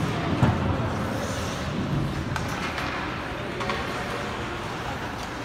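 Ice hockey play in an indoor rink, heard from the stands: a steady echoing haze of skates and sticks on the ice, with a few sharp knocks of stick, puck or boards, the loudest about half a second in.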